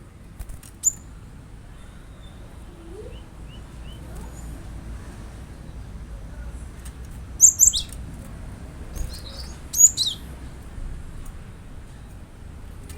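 Cinereous tit (glatik batu) calling: short, sharp, high chirps that sweep downward, in a few spaced clusters, the loudest around the middle and just after.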